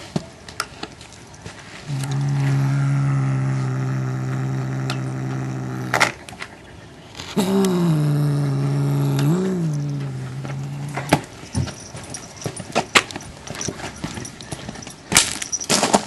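Domestic cat growling low around a bird held in its mouth, a cat guarding its prey: two long growls of about four seconds each, the second rising briefly in pitch partway through. Sharp clicks and knocks come between and after the growls.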